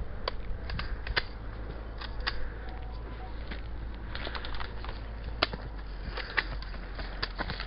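A run of irregular sharp clicks and snaps, a dozen or more at uneven spacing, over a steady low rumble.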